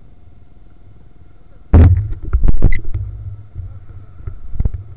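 Motorcycle-mounted camera jolting: a low riding rumble, then a sudden heavy thump with sharp knocks and rattles about two seconds in, and another knock near the end.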